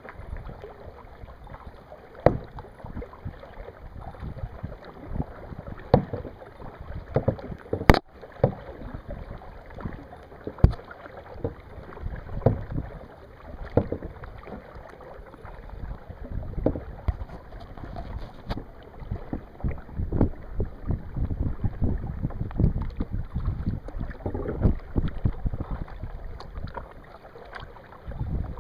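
Kayak being paddled: paddle splashes in the water with irregular knocks, and wind rumbling on the microphone.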